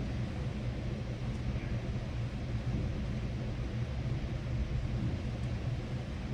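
Steady low rumble and hiss of room noise, without speech.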